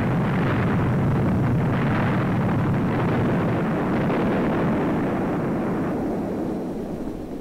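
Loud, continuous noise of shell explosions on an old film soundtrack, dying away near the end.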